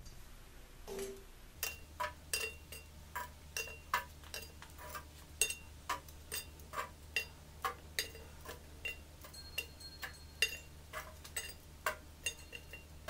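Metal tongs setting charcoal briquettes one at a time onto a cast iron Lodge camp Dutch oven lid. The result is a long string of sharp clinks, many with a short metallic ring, two or three a second.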